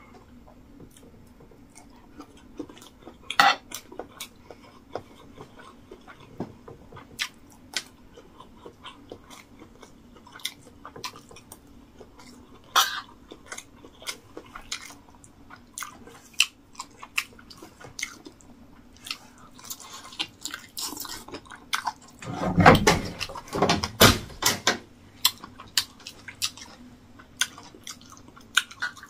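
Close-up eating sounds: chewing of rice and stew, with scattered sharp clicks of a fork and spoon against the plate. About three quarters of the way through comes a louder cluster of knocks and clatter.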